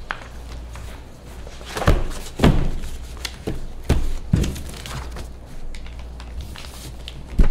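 Paper documents and folders being shuffled and set down on a table close to a microphone: rustling with irregular thuds, the loudest near the end, over a steady low hum.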